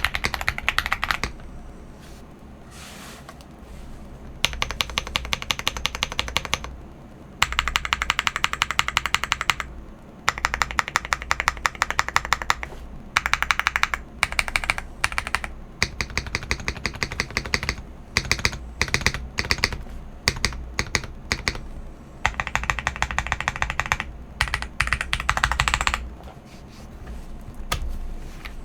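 Typing on a CIY GAS 67 mechanical keyboard fitted with unlubed KTT Wine Red linear switches and GMK DMG clone keycaps, its case tape-modded and foamed: fast runs of keystroke clacks in bursts of a second or two, with short pauses between.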